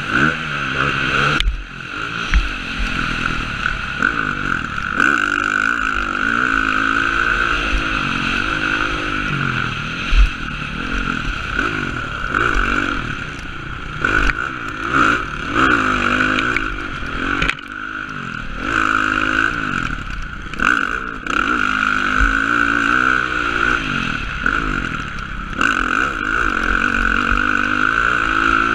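Dirt bike engine heard from a helmet camera while riding a motocross track, revving up and falling back again and again as the throttle is worked through corners and jumps, with a few brief drops where the throttle is chopped. A few sharp thumps stand out.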